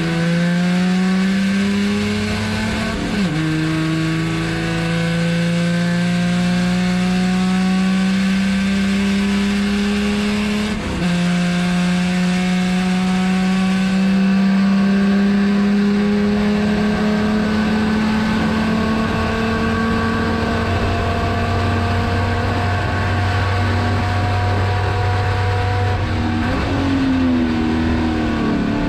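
Chevrolet Opala race car's 250 cu in (4.1-litre) straight-six at full throttle, heard inside the stripped cabin: the revs climb and drop sharply with an upshift about three seconds in and another about eleven seconds in, then rise slowly through a long pull in top gear. Near the end the revs fall away with a brief flare, a lift and downshift.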